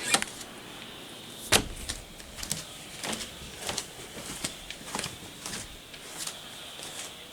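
A sharp knock about a second and a half in, then lighter clicks and knocks at roughly two a second.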